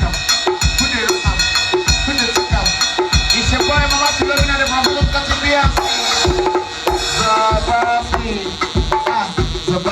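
Loud dance music driven by a heavy kick drum, several beats a second, with pitched melodic lines over it.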